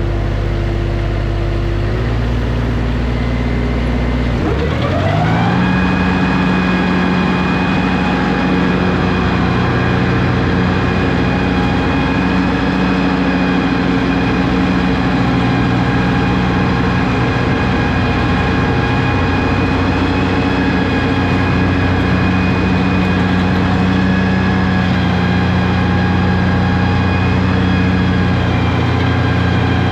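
Lawn tractor's engine running at low speed, then throttled up about four seconds in, its pitch rising smoothly to a steady high speed that holds.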